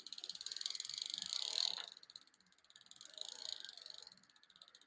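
Bicycle rear freewheel ratcheting in a fast, even run of clicks as the crank is turned backwards to thread a pedal on, for about two seconds, then a shorter, fainter run of clicks a second later.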